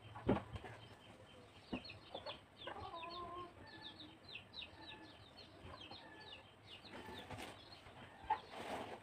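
Faint chickens: many quick high peeps, with a drawn-out hen call about three seconds in. Soft thumps near the start and rustling of bedding near the end as a blanket and sheet are handled.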